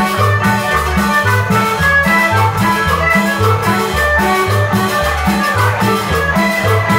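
Live tropical dance band music: accordion melody over a bass line repeating about twice a second, with guitar and percussion including a metal güira.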